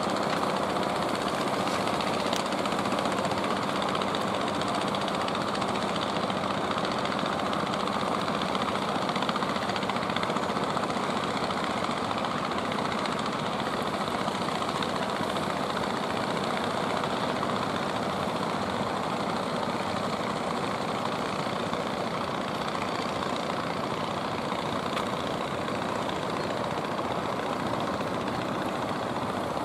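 Fishing boat engine running steadily at an even pace, a constant drone with a steady low hum.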